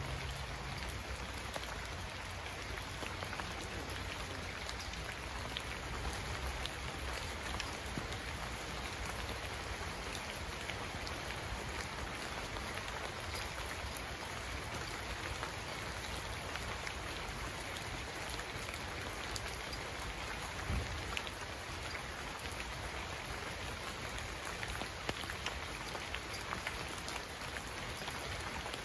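Steady rain falling, with the ticks of single drops standing out here and there. A low rumble sits under the first several seconds, and a short low thump comes about 21 seconds in.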